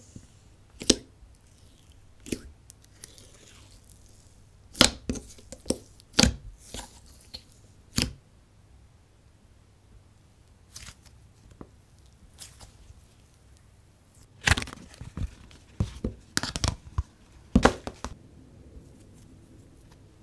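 Purple jelly slime being poked, squeezed and peeled out of its tub by hand: scattered sharp sticky pops and crackles, the busiest stretches about five to eight seconds in and again from about fourteen to eighteen seconds.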